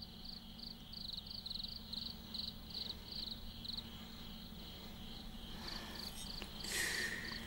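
Crickets chirping in an even rhythm, about three short high chirps a second, breaking off briefly in the middle and then resuming.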